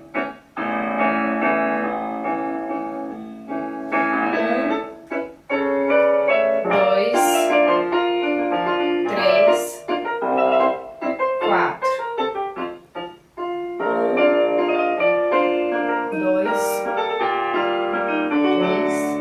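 Piano accompaniment for a ballet barre exercise: slow, sustained piano phrases playing throughout.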